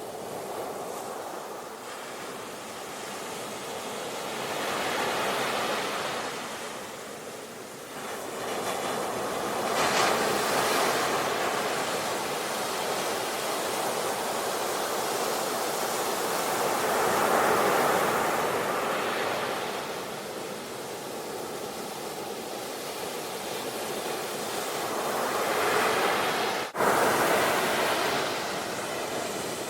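Sea waves washing onto the shore as a continuous surf, swelling and easing every several seconds. The sound drops out for an instant a few seconds before the end.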